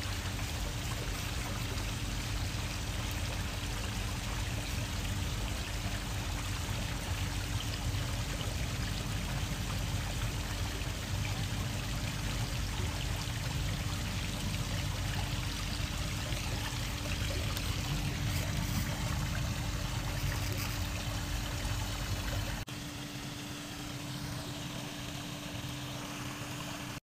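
Acetone trickling steadily down through a tall stack of polystyrene foam cups as the foam dissolves, a little softer for the last few seconds.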